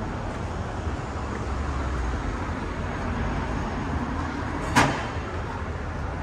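City street traffic: cars passing, with a steady road noise and low rumble. One sharp knock stands out about five seconds in.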